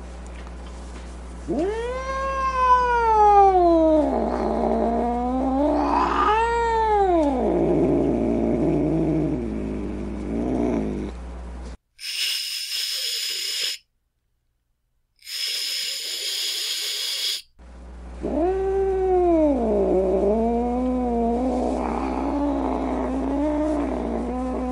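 Angry domestic cat yowling in long drawn-out moans that rise and fall in pitch, sinking into a low growl. About halfway through come two hisses of about two seconds each, with a brief silence between them, and then the wavering yowling starts again.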